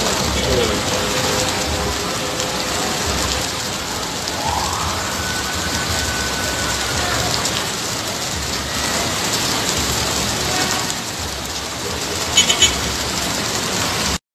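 Heavy rain mixed with hail pelting a street: a dense, steady hiss. Three short, sharp sounds come near the end.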